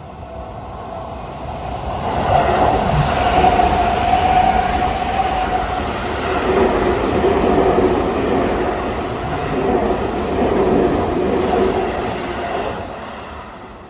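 Seibu 6000 series electric commuter train passing over a level crossing, its wheels running on the rails. The sound builds about two seconds in, stays loud, then fades near the end.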